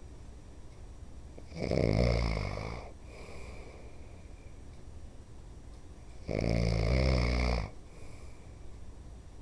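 A man snoring in his sleep: two loud snores, each about a second and a half long and some five seconds apart, with quieter breathing between them.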